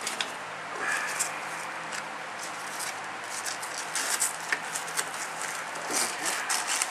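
Hands strapping a small battery into a control unit, with scattered light clicks and rustles from the strap and wiring being handled.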